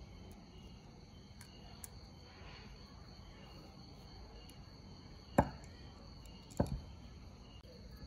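Two sharp plastic clicks about a second apart as a circuit board is pressed into a cassette radio's blue plastic control panel. A steady high buzz runs in the background.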